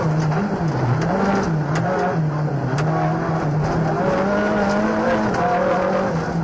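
Rally car's engine heard from inside the cockpit at stage pace, its pitch rising and falling repeatedly, with a longer high stretch about two-thirds of the way through before it drops. Scattered sharp clicks sound over it.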